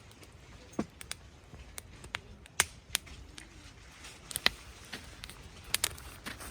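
Wood fire crackling: irregular sharp pops and snaps from the burning firewood over a faint steady hiss.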